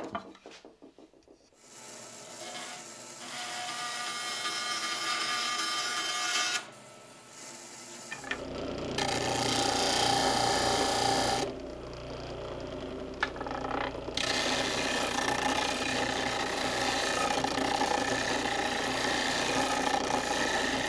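Shop-made disc sander running, its motor humming steadily while the end of a hardwood chair leg is pressed against the spinning sanding disc to round it over. The grinding drops back for a couple of seconds partway through as the wood is eased off, then resumes. Before the sander comes in, a few seconds of another tool working the wood.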